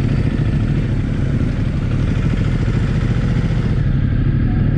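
Motorcycle engine idling close to the microphone, a low, even pulsing as the bike creeps along at walking pace. The upper hiss thins out about four seconds in.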